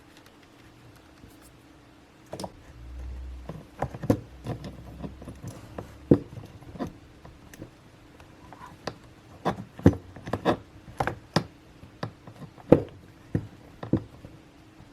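Irregular sharp clicks and knocks of hands handling a laptop's plastic casing and tools while a broken hinge is set in epoxy, with a brief low rumble a few seconds in.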